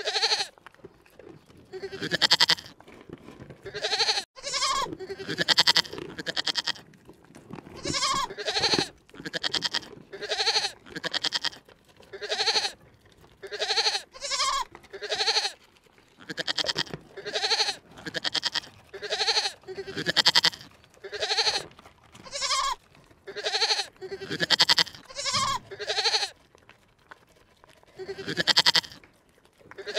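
An animal bleating over and over, about one call a second, each call short and quavering.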